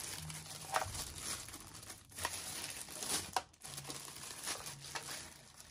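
Plastic packaging crinkling and rustling in the hands as a packed part is unwrapped and handled, with irregular crackles that fade near the end.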